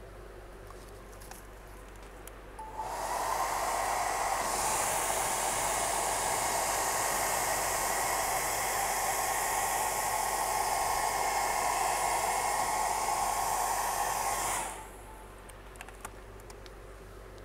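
Handheld hot-air blower switched on and blowing over wet epoxy resin: a steady rush of air with a faint steady hum for about twelve seconds, starting about three seconds in and cut off sharply near the end.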